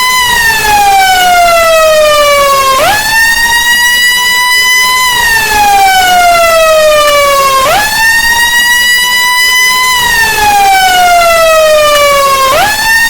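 Emergency siren in a slow wail: one loud tone that slides down over about three seconds, snaps quickly back up and holds near the top for about two seconds, repeating roughly every five seconds.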